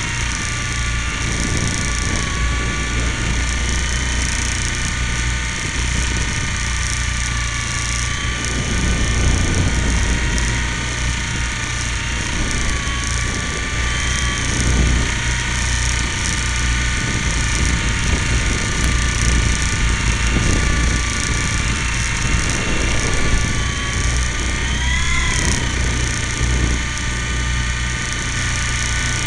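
Small RC helicopter's motor and gears whining steadily, picked up by a camera riding on the helicopter itself, over a low rumble of rotor wash. The pitch wavers up and back down briefly near the end as the motor speed changes.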